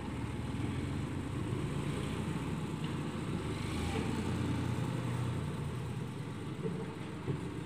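Sonalika DI 750 tractor's diesel engine running steadily as the tractor pulls away with its emptied tipping trolley, growing slightly fainter near the end.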